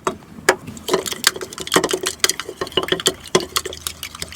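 A utensil stirring glue thinned with tap water in a container: quick, irregular clicks and taps against the sides, several a second, with a wet swishing.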